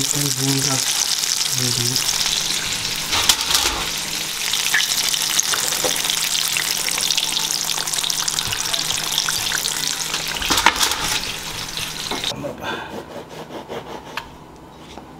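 Flour-coated chicken thigh pieces deep-frying in hot oil in a metal pan: a steady, loud sizzle, with a couple of sharp clicks along the way. The sizzle stops abruptly about twelve seconds in, leaving fainter clicks and rustles.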